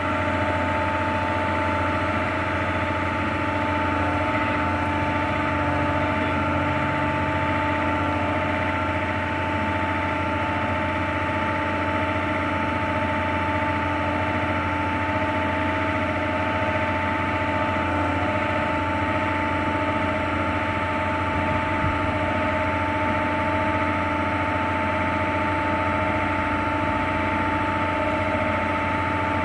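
Slipway winch machinery running steadily as it lets the boat cradle down the rails: a constant hum with a steady whine.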